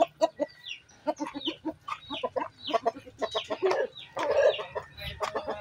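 Penned chickens clucking and calling, many short calls in quick succession overlapping one another.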